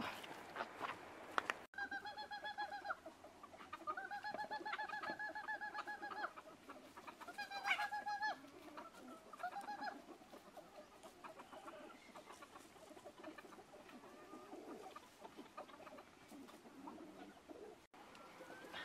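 Farmyard chickens calling: several long, even calls, one drawn out for over two seconds, then softer scattered clucking. A few sharp knocks come right at the start.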